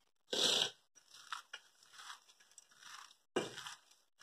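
A hand squishing and crunching coarse ground chana dal batter with whole soaked dal and herbs in a steel bowl, in short irregular bursts. The loudest come about half a second in and near the end.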